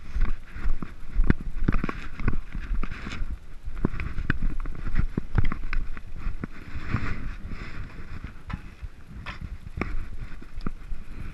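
Mountain bike riding down a rocky dirt singletrack: tyres rolling and crunching over stones and dry leaves, with irregular knocks and rattles as the bike hits bumps. The clatter eases for a moment about eight seconds in.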